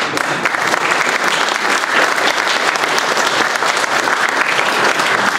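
Audience applauding, breaking out suddenly at the start as a dense, even clatter of many hands clapping.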